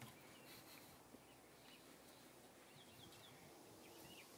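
Near silence with faint, short bird chirps now and then, coming more often toward the end.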